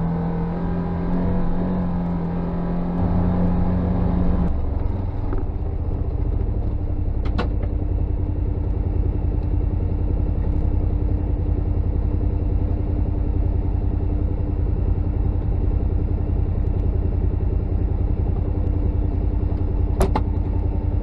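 UTV engine running steadily with a low rumble as the machine drives a dirt track. A sharp knock comes about seven seconds in and another near the end. A steadier, pitched sound, partly taken for music, stops abruptly about four seconds in.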